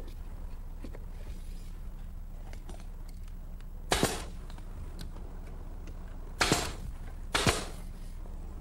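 Pneumatic nailer firing three times into a wooden shelf: a sharp shot about four seconds in, then two more in quick succession near the end, over a steady low hum.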